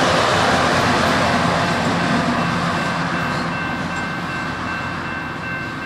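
Loram rail grinder train rolling past at close range, not grinding: wheels on rail and the diesel power car running, the noise fading steadily as it moves away. Steady high-pitched tones come in about halfway through.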